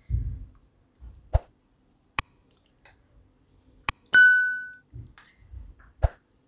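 A steel spoon scooping thick curd from a bowl and dropping it onto a steel plate: soft low thuds and several sharp taps, with one bright ringing clink of steel about four seconds in that dies away within half a second.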